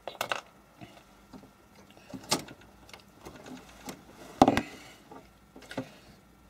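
Scattered knocks and clanks of metal as hands work at the HP 8568B spectrum analyser's sheet-metal case and covers, with the loudest knock about four and a half seconds in.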